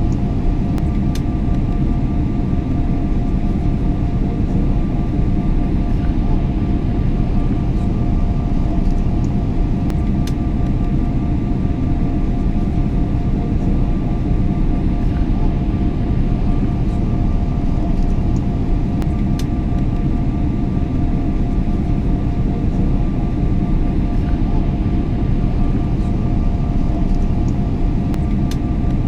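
Airliner cabin noise in flight: a steady low rumble with two steady hums held above it, and a few faint ticks.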